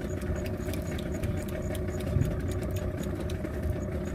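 Boat engine running steadily at low revs, with a light, regular ticking about three to four times a second.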